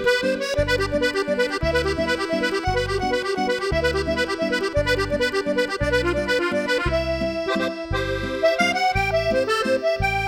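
Accordion playing a musette waltz: a melody line over a steady, repeating bass-and-chord accompaniment in waltz time.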